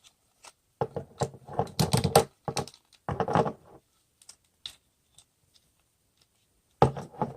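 Hard plastic parts of a Transformers action figure being rotated and handled: clusters of small clicks and rattles, with only a few scattered ticks in the middle.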